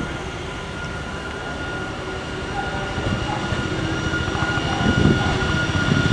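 WAG-12 twin-section electric freight locomotive hauling a container train past at close range. A steady high whine sits over the rumble of wheels on rail, and it all grows louder as the locomotive draws level.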